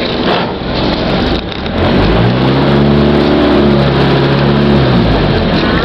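Outrigger passenger boat's inboard engine running hard as the boat gets under way. About two seconds in, its note rises and then holds steady for a few seconds before easing near the end, over a steady rush of wind and water.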